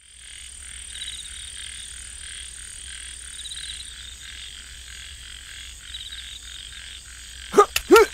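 Night-time frog chorus: many frogs croaking in overlapping pulsed calls, with a thin steady high tone that stops about halfway through. Two short, loud swooping calls break in near the end.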